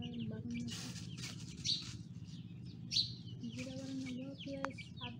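Small birds chirping over and over in quick, falling chirps, with a few short noisy bursts and a steady low hum beneath.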